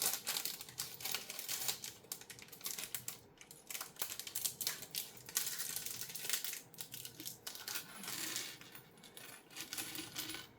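Small plastic LEGO pieces clicking and rattling as they are handled and sorted: an irregular run of light clicks and clatter.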